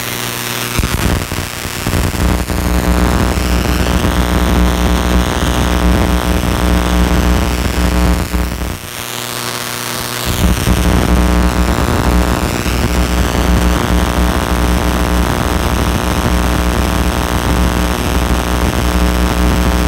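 High-voltage setup running at around 50 kV: a loud, steady electrical hum with a hiss over it. It drops out for about a second and a half near the middle, then comes back at full strength.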